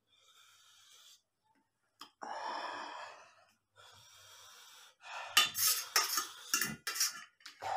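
Spoon scraping and clinking on a steel plate, a quick run of sharp scrapes and clinks in the last few seconds.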